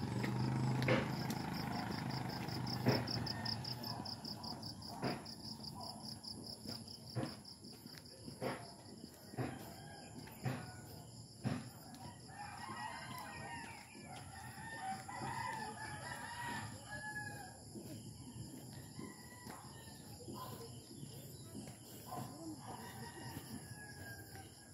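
A rooster crowing about halfway through, over a steady high-pitched drone. In the first half there are sharp taps about once a second, footsteps on the walk.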